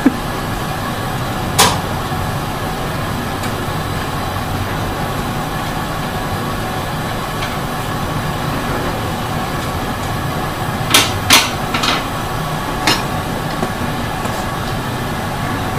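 Sharp metallic clicks of steel glassworking tweezers and rod knocking together while a small hot-glass pony is worked and set down. There is one click about a second and a half in and a quick cluster of four between about 11 and 13 seconds in, over a steady workshop hum.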